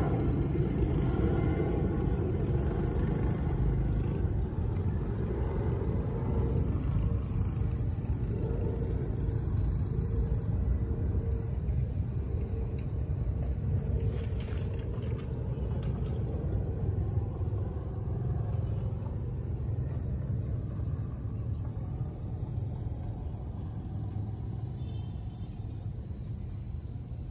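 A steady low rumble that fades slowly toward the end.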